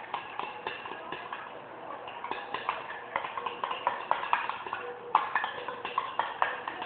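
Glue and detergent being stirred in a container with a utensil: an irregular run of quick clicks and taps as it knocks and scrapes against the sides.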